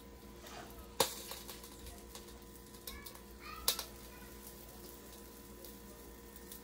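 Two sharp clicks, about a second in and again near the middle, with a few fainter ticks over a quiet steady background, as a plastic pancake-mix shaker bottle is handled and batter poured onto an electric griddle.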